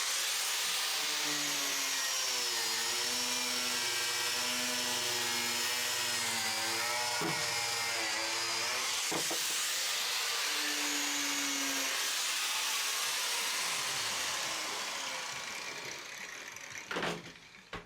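Handheld electric power tool running on the van's rusted sheet-metal body, its whine wavering in pitch as it is pressed on and eased off, with a steady hiss over it. It fades out over the last few seconds.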